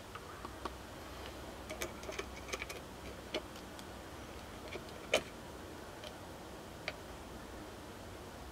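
Light, irregular clicks and taps as multimeter test probes and their leads are handled and touched onto the components of a small circuit board, the sharpest click about five seconds in.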